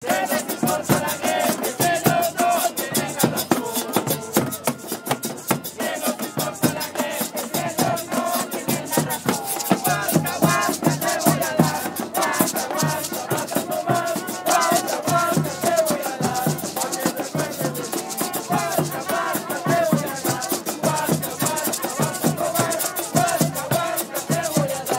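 Street march: a crowd chanting and singing over steady, rapid shaker and drum percussion.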